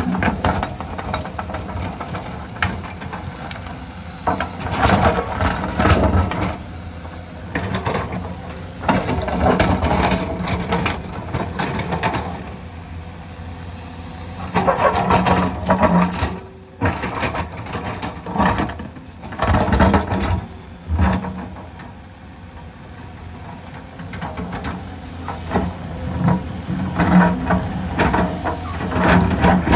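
Hyundai crawler excavator's diesel engine running under load as its bucket digs into and drags broken rock. Rocks clatter and scrape in irregular loud surges every few seconds over the steady engine hum.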